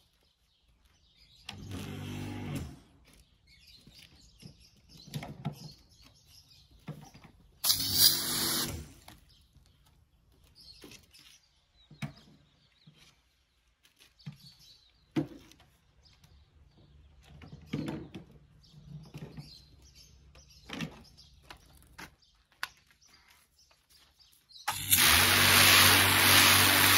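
Pressure washer starting up near the end and spraying water onto a slatted roller shutter lying on concrete: a steady motor hum under a loud hiss of spray. Earlier, two short bursts of it running briefly.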